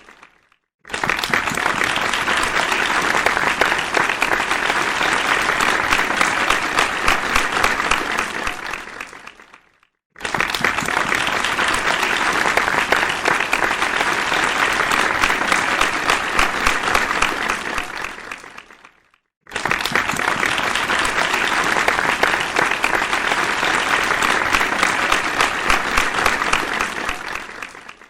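Audience applause, a dense crowd of hands clapping. It comes in three stretches of about nine seconds each, each starting suddenly at full strength and fading away, with a brief silence between them.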